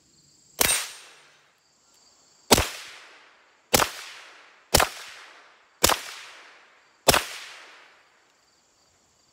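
Six suppressed shots from a Walther PPQ 9mm pistol, each a sharp crack with a short echo trailing off. The shots come about one to two seconds apart, the first gap the longest.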